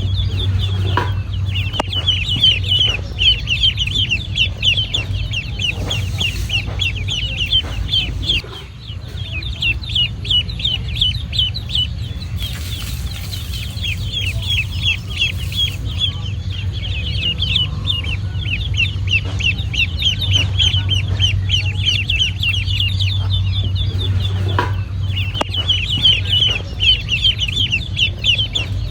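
Ducklings peeping continuously, many short high downward-slurred peeps in quick succession, over a steady low hum with a few scattered taps.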